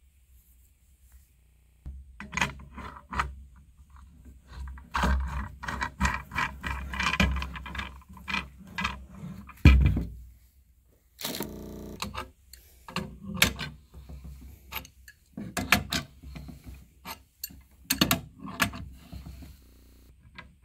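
Hand-handling noises from fitting together a high-pressure cleaner's metal couplings, PTFE-taped threads, spray gun and lance: an irregular run of clicks, taps and rubbing, with a heavy knock about ten seconds in and a short rasp just after.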